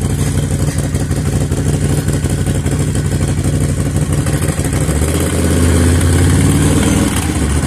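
Can-Am's engine running through a new stainless exhaust with the catalytic converter removed and mufflers fitted, a little louder and deeper than stock. It holds a steady low beat, revs up about five seconds in, holds for a couple of seconds, then drops back.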